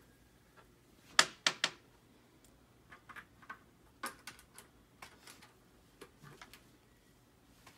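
Hard clicks and knocks of a plastic football helmet and its metal face mask being handled while a screw is lined up by hand. Three loud clicks come close together about a second in, followed by scattered lighter ticks.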